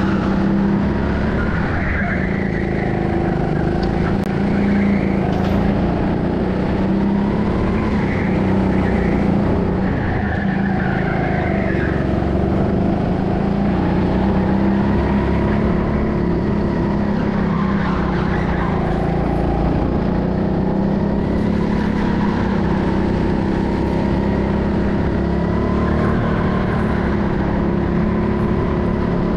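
Go-kart running at speed around a track, a steady motor drone whose pitch rises and falls with speed. Brief tyre squeals come every few seconds through the corners.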